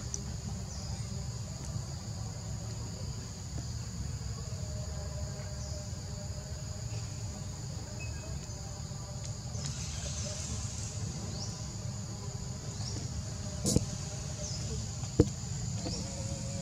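Steady high-pitched drone of insects on two pitches over a low rumble, with two sharp knocks about a second and a half apart near the end.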